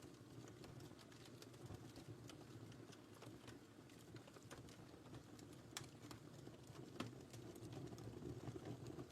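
Wood fire in a fireplace crackling faintly, with scattered sharp pops and snaps over a soft low rumble of the flames; one of the louder pops comes about seven seconds in.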